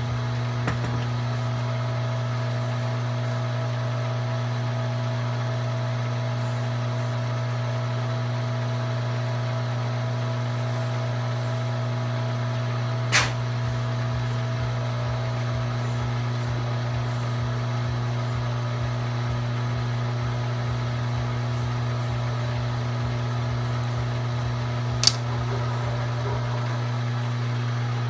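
G0704 milling machine's spindle running with a steady hum while a cutter bores a counterbore in a metal plate. A thin ringing tone fades out a little past halfway, and two sharp clicks come, one about halfway through and one near the end.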